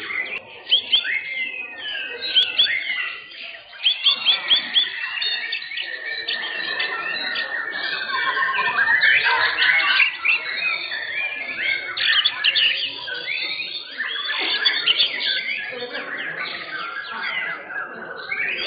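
Several white-rumped shamas (murai batu) singing at once in a dense, overlapping chorus of fast whistles, chirps and trills, with a long steady whistle held for several seconds in the first half.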